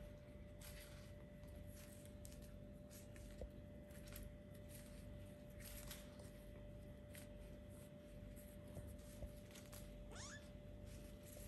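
Four-week-old kittens moving about with faint, scattered scratching and rustling, and one short high mew near the end, over a steady low hum.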